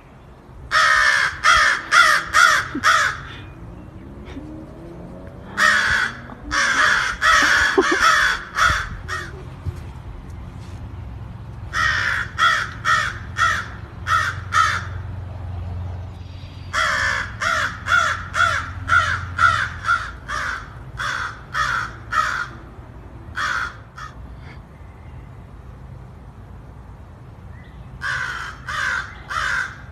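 Crow cawing in repeated runs of harsh caws, about three a second, with pauses of a few seconds between the runs.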